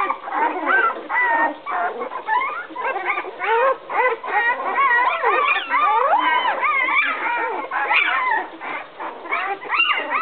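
A litter of 11-day-old Bouvier puppies crying all at once, many short high cries rising and falling and overlapping without a pause: the puppies are upset and searching for their mother, who has just left the whelping box.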